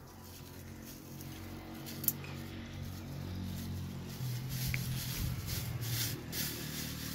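Dry twigs and a plastic bag being handled, crinkling and rustling, with a sharp click about two seconds in and a run of crackles around five to six seconds in. A low steady hum runs underneath.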